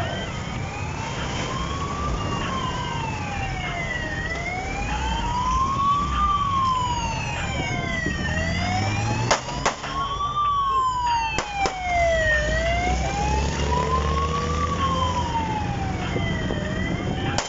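Police motorcycle siren wailing, its pitch sweeping slowly up and down about every four seconds, over the low running of motorcycle engines. A few sharp knocks come around the middle.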